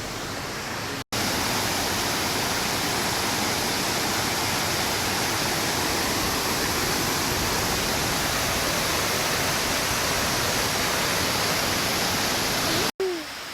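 Waterfall cascades rushing down over rock: a steady, even roar of falling water. It breaks off for an instant about a second in and again near the end.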